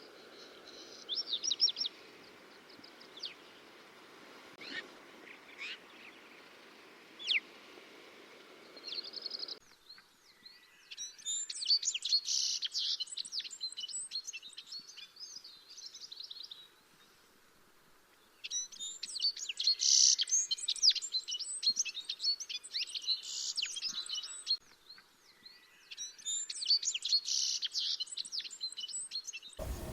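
Small songbird calls: a few short, scattered calls at first, then three long bouts of fast, jumbled twittering song after a cut in the recording.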